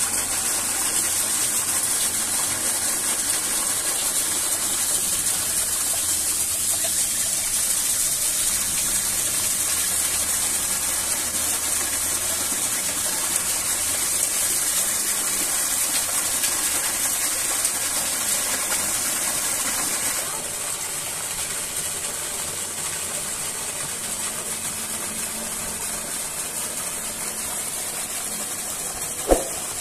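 Steady rushing of a waterfall, an even hiss of falling water that drops a little in level about two-thirds of the way through. A single sharp knock sounds near the end.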